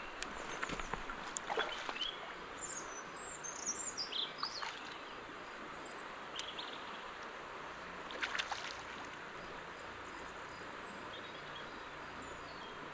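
Steady rush of river water, with birds chirping from about two to five seconds in and a few short sharp sounds scattered through.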